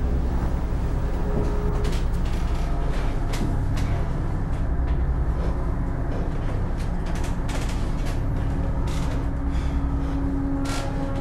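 A steady low rumbling drone with scattered clicks and knocks through it; held ominous tones come in near the end.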